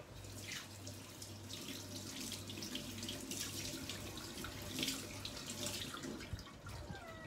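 Kitchen tap running into a stainless-steel sink as hands are rinsed under the stream, the water splashing unevenly.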